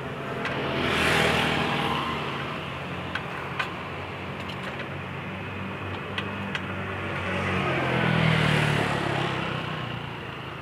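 Road traffic: two motor vehicles pass, one about a second in and another about eight seconds in, each a rise and fall of engine and tyre noise, over a steady low engine hum.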